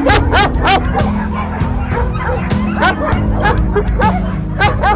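Shelter dogs barking repeatedly in quick succession, several barks overlapping, over background music with sustained low notes.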